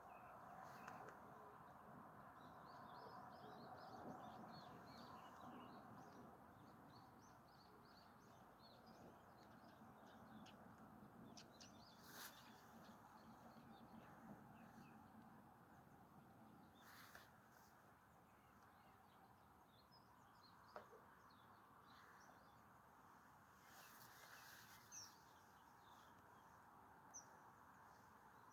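Faint, quiet outdoor ambience with small birds chirping here and there, busiest in the first few seconds, and a few faint sharp clicks later on.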